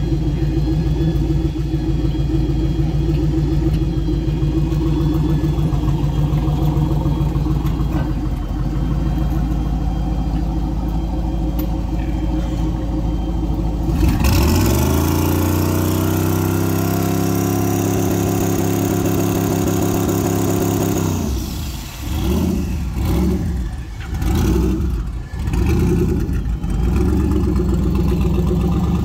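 Turbocharged 4.8-litre LS V8 in a Chevy S10 pickup. The engine runs with a steady drone, then about halfway through goes to hard acceleration, the revs climbing quickly and holding for several seconds. After that it turns choppy and uneven with the throttle coming on and off, and it settles back to steady running near the end.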